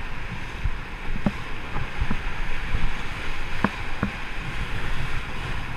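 Whitewater rapid rushing steadily around a boat, with irregular low thumps and slaps as waves hit the hull.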